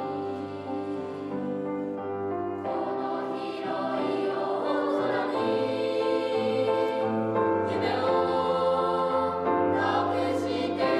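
Children's choir singing a song together, accompanied by a grand piano, the voices ringing out in a school gymnasium. The piano is one that was submerged in a flood and restored.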